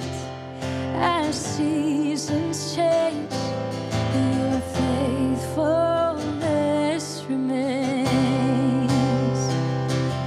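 A woman singing, holding notes with vibrato, while strumming an acoustic guitar.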